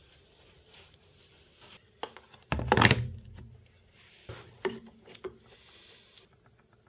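A jigsaw mounted under a Perspex plate being handled on a wooden workbench: a click about two seconds in, then one heavy thud, followed by a few lighter knocks.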